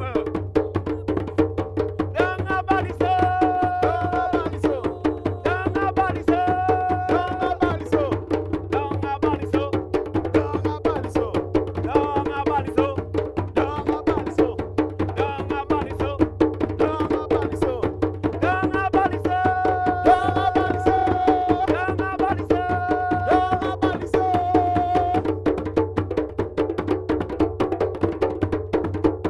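A hand-drum ensemble plays a fast, steady rhythm. Held melodic phrases come in over the drums about two seconds in and again past the middle.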